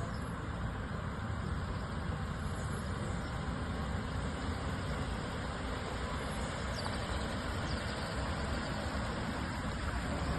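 A motor vehicle's engine running steadily, with an even rumble and no clear changes.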